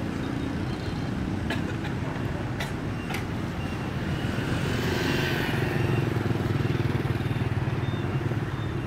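Street traffic of motorbikes and scooters running, a steady low engine rumble that swells as one passes close about halfway through. A few sharp clicks sound in the first three seconds.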